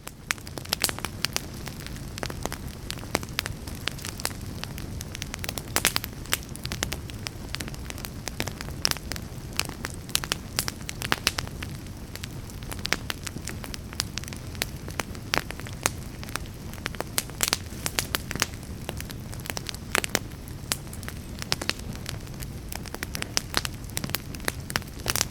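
Fire burning and crackling: frequent sharp pops and snaps over a steady low rush.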